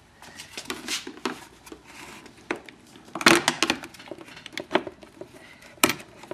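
Steel flathead screwdriver clicking and scraping against a metal push nut on a toy tractor's wheel axle as it is pried at, in irregular sharp clinks with the loudest cluster about halfway through.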